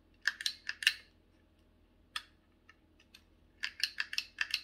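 Hand-held embossing label maker's letter wheel being turned, clicking through its detents in quick runs: a run of rapid clicks near the start, a single click about two seconds in, and another run near the end.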